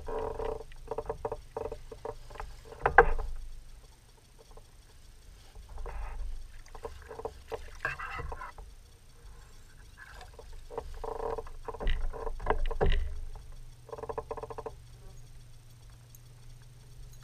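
Spinning reel cranked in bursts of rapid clicking while a hooked bass is played in, with a sharp knock about three seconds in and more clatter on the plastic kayak around twelve seconds in.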